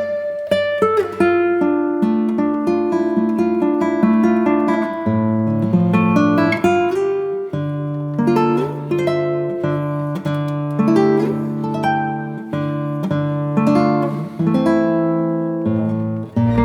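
Background music played on acoustic guitar: plucked and strummed notes and chords.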